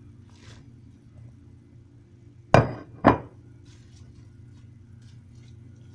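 Two sharp knocks about half a second apart, a little over two and a half seconds in, as apples are dropped into a bowl, with a short ring from the bowl. Faint small clicks follow.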